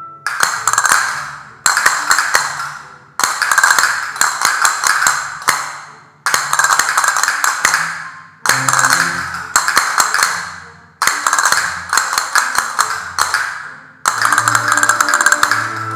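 Several pairs of castanets played together in repeated rhythmic phrases of rapid clicks, including rolls. Each phrase lasts a couple of seconds and starts sharply, with short breaks between phrases.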